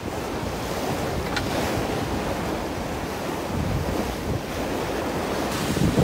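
Steady rush of open water with wind buffeting the microphone, as heard from a boat. Low gusts of wind swell about three and a half seconds in and again near the end.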